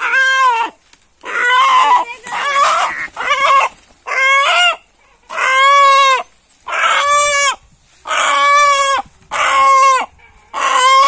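Free-range rooster squawking in distress as it is caught and held by the legs: loud, harsh calls repeated about once a second.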